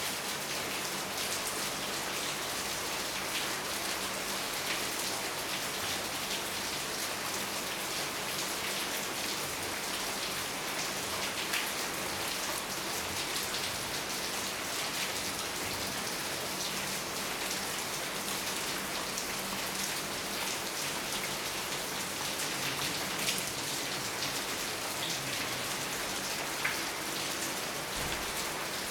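Steady rain falling on a surface, with scattered sharper drop ticks standing out here and there.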